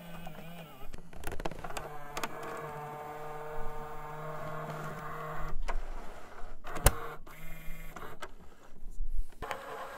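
Glitchy, tape-like transition sound effects: a mechanical whirring with a steady hum, crackle and scattered clicks. The hum stops about five and a half seconds in, and a sharp click comes about a second later.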